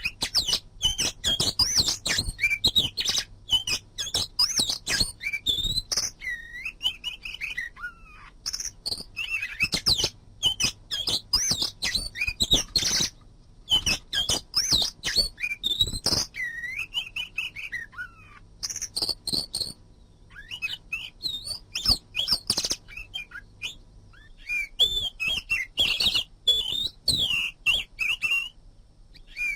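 Oriental magpie-robin (kacer) singing a long, varied song of rapid whistled phrases that rise and fall in pitch, mixed with sharp clicking notes, broken by short pauses.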